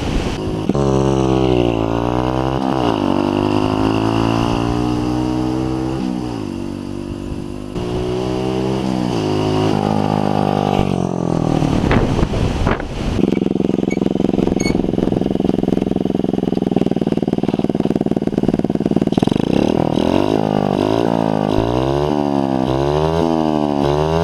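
Skyteam Dax 50cc four-stroke single running through an aftermarket GP Custom exhaust: it pulls up through the gears, its pitch climbing and dropping at each shift. Midway it holds a steady note, and near the end it is revved up and down in quick repeated blips.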